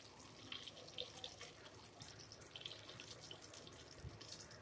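Faint, scattered crackling of cumin seeds frying in hot oil in a wok as they are stirred.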